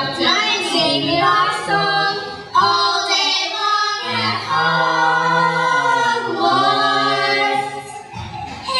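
A group of children singing a cappella, several voices together in long held notes.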